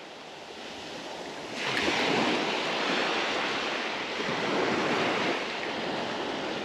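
Small surf waves washing onto a sandy beach with wind buffeting the microphone, a steady rushing noise that grows louder about a second and a half in.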